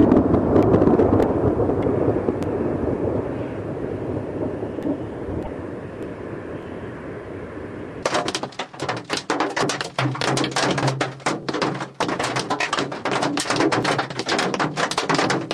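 Thunder rumbling, loudest at the start and slowly fading over several seconds. About eight seconds in it gives way to hail pelting a car's roof and windshield, heard from inside the cabin as a dense clatter of hard impacts.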